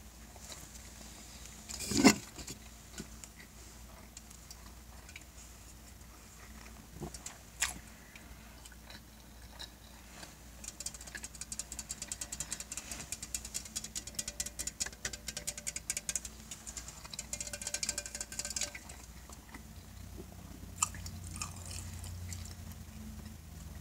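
Close-miked chewing and mouth sounds from a person eating: a dense run of rapid small wet clicks through the middle, and a few sharp knocks, the loudest about two seconds in.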